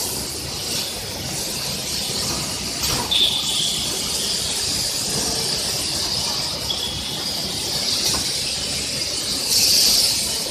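Battery-case heat-sealing press and factory machinery running with a steady high hiss. Short high squeals come about three seconds in and again near seven seconds, with a couple of light knocks. A louder burst of hiss comes near the end.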